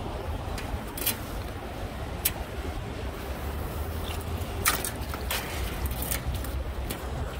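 A fishing rod and baitcasting reel being handled: a handful of short, sharp clicks and ticks over a steady low outdoor rumble.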